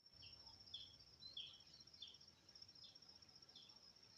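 Faint outdoor insect chorus: a steady, high, finely pulsing trill like a cricket's, with short chirps repeating about every two-thirds of a second.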